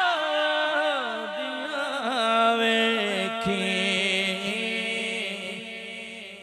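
A man's voice chanting a Punjabi naat into a microphone, amplified. A long, ornamented phrase winds up and down, then settles about three seconds in onto a held note that slowly fades.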